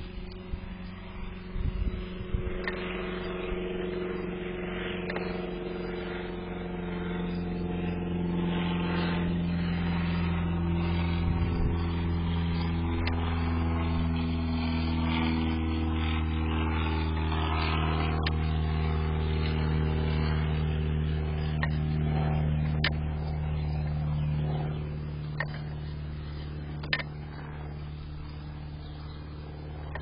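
An engine running steadily, its pitch drifting slowly up and down, a little quieter about 25 seconds in. A few sharp clicks sound over it.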